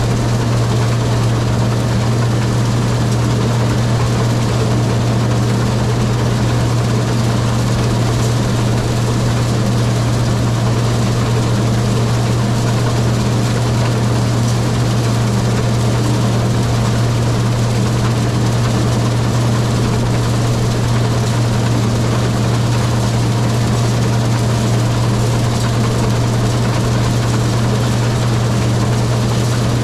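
Case IH combine running steadily while harvesting soybeans: a loud, unchanging low drone with a strong hum and a constant machinery noise over it.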